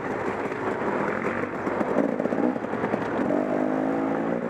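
KTM 300 XC-W's single-cylinder two-stroke engine running under way on a dirt bike ridden along a trail, the revs climbing in the last second or so.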